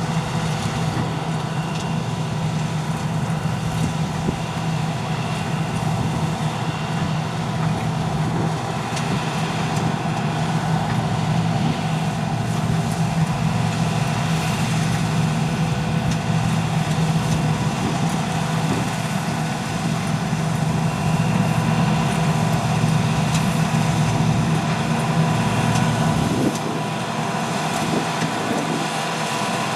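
Heavy diesel harvest machinery running steadily: a strong, even engine hum with steady whining tones above it. About 26 seconds in, the deep hum drops away and the sound changes.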